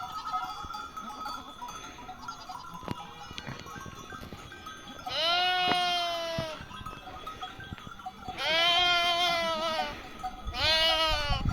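Sheep bleating: three long, quavering bleats, about five, eight and a half and ten and a half seconds in, the last one shorter.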